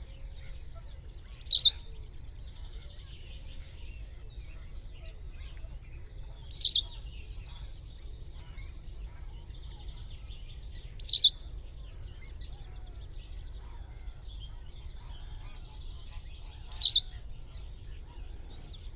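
White wagtail giving four short, loud calls about five seconds apart, each a quick high note sweeping downward.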